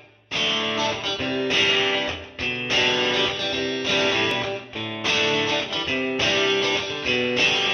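Background music led by guitar, playing phrases of held chords.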